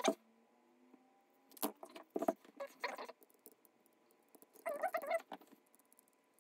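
Short squeaky scrapes and taps from hand-soldering a chip's pins onto a small circuit adapter board with a soldering iron: three brief bursts in the first half, then a longer squeak of wavering pitch near the end.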